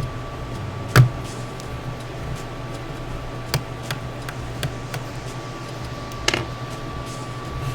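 A few sharp clicks and taps, the loudest about a second in, as a small screwdriver works a hidden screw out of a laptop's plastic bottom case, over a steady low hum.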